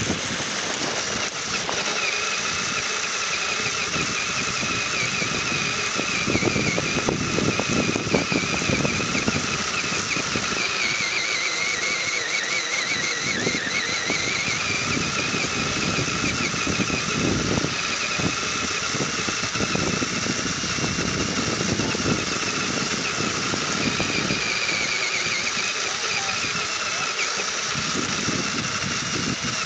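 Radio-controlled rock crawler driving over rough ground, its motor and gears giving a steady high whine that dips in pitch for a couple of seconds around the middle, over an uneven rumble.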